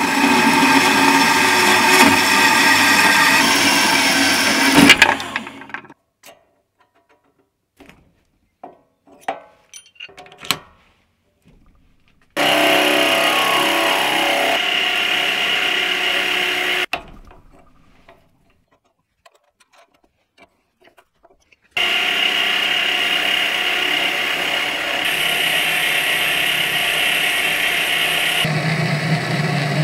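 A metal-cutting band saw running through a steel bar for about five seconds, followed by a few scattered clicks and knocks. A mini lathe then takes a cut on the bar end for about four seconds, and for the last eight seconds the lathe drills into the spinning bar with a twist drill held in the tailstock chuck.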